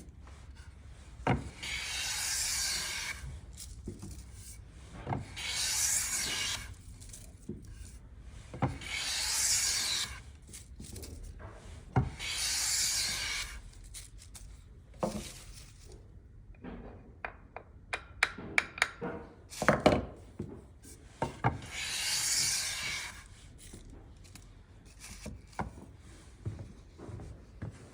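Japanese hand plane (kanna) with a carbon-tool-steel blade shaving wood in five long strokes, each a hiss of about a second and a half. Knocks and clicks come between the strokes, with a cluster of them past the middle.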